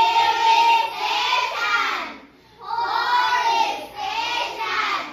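A class of children chanting English vocabulary words together in unison, in phrases of about two seconds with short pauses between them.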